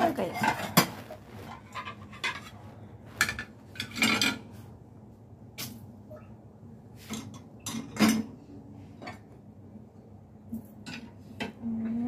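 Ceramic bowls and plates clinking and knocking against each other and the dishwasher's wire rack as they are set in one by one: irregular clatters, the loudest about a second in, four seconds in and eight seconds in.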